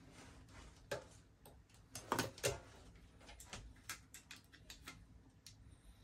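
Irregular small clicks and taps of hand tools and phone parts being handled, with the loudest pair a little over two seconds in.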